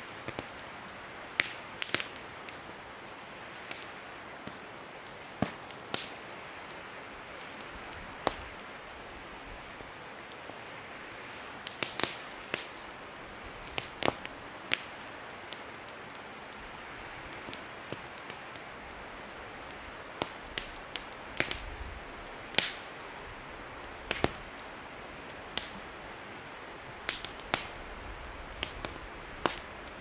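Campfire of burning wood crackling in a stone fire ring: sharp irregular pops and snaps, some single and some in quick clusters, over a steady hiss.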